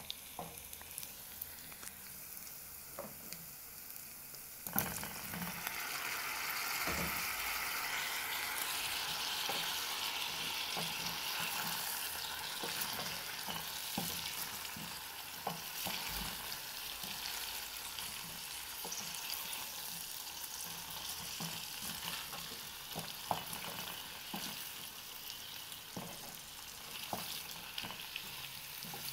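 Beetroot strips frying in oil in a stainless steel pot, a steady sizzle that grows louder about five seconds in as sliced potatoes go in. A spoon stirring knocks lightly against the pot now and then.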